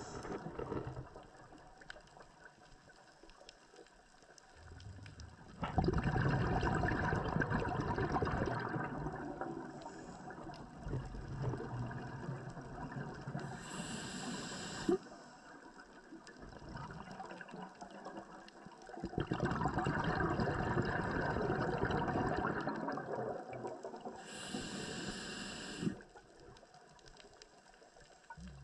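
Underwater water noise around a diver's camera, rising into two long stretches of rushing water, each ending with a brief higher hiss.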